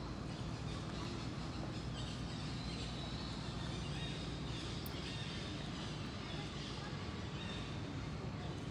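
Steady outdoor background noise, mostly a low rumble, with faint high chirping in the middle.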